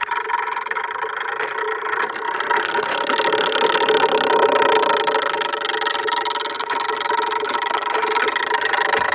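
Plastic bottle rigged against a bicycle's spokes as a mock exhaust, buzzing steadily like a motorbike engine, swelling slightly about halfway through.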